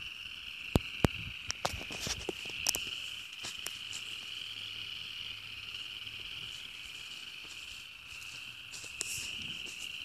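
Distant frog chorus from a pond: a dense, steady, high-pitched trilling din of early-spring breeding calls. A few sharp clicks stand out within the first three seconds.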